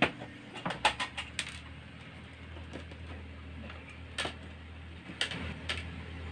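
Scattered hard plastic clicks and taps from a disassembled electric tyre air pump being handled, with its screws set into a plastic cup: a quick cluster of clicks about a second in, then single taps around four and five seconds in, over a low steady hum.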